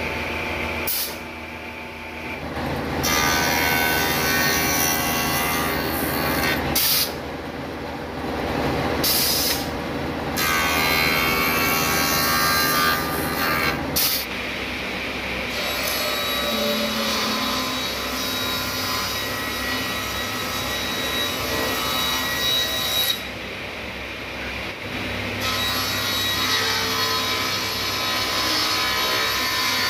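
Woodworking machines cutting long boards: first a cutting machine runs with repeated loud bursts of noise as a plank is pushed through it. About halfway in, a sliding-table panel saw takes over, running steadily as it cuts along a board.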